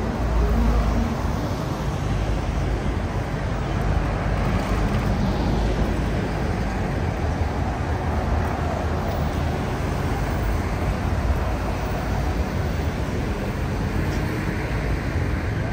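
Steady street noise of road traffic, with a heavier low rumble in the first second.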